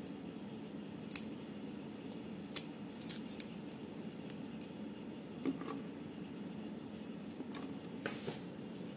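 Kitchen knife slicing a garlic clove lengthwise in the hand and the halves being dropped into a plastic bottle: a few scattered sharp clicks and small taps.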